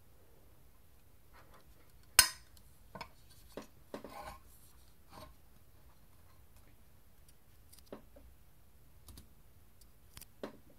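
Handling noise as an 8-inch woofer is turned in the hands and set down: one sharp click about two seconds in, the loudest sound, then scattered light knocks and brief rubbing.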